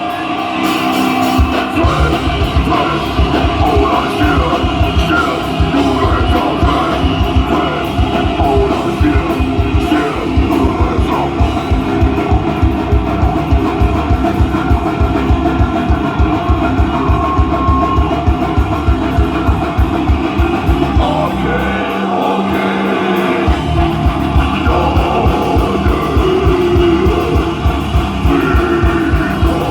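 A goregrind band playing live at full volume: distorted guitars and fast, dense drumming with vocals over the top. The low end drops out for a moment about 22 seconds in, then the full band comes back in.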